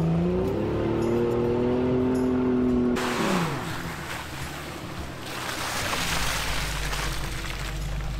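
Vehicle engine revving hard as it drives through mud, rising in pitch about half a second in and dropping off sharply about three seconds in. A steady rushing noise of tyres and spray follows.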